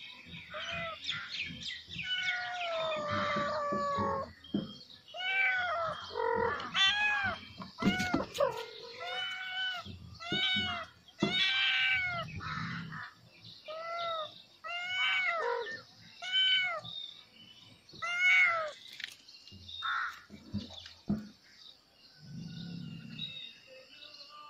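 Kitten meowing over and over: a long drawn-out cry, then short rising-and-falling meows about one a second, which thin out near the end.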